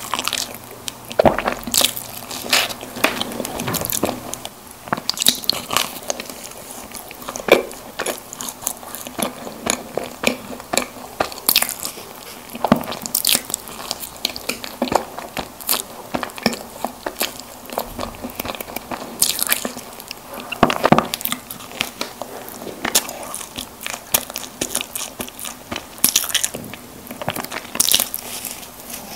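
Close-miked biting and chewing of chocolate-coated snack cakes, with many sharp, irregular crackly clicks.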